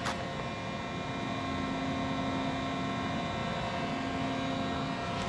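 Steady hum of running machine-shop equipment, holding several fixed tones. A brief paper rustle comes at the very start as a manual's pages are turned.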